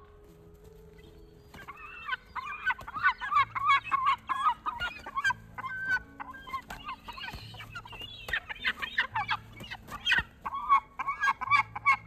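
Gulls squabbling, calling in fast runs of loud, harsh repeated notes that start about a second and a half in and carry on without let-up.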